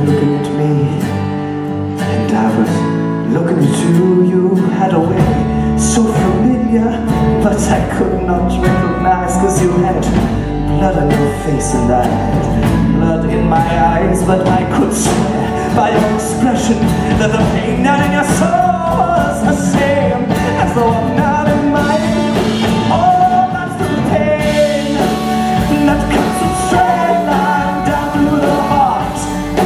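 A live rock band playing, with a bass guitar and drums coming in about five seconds in and a singer's voice over the band.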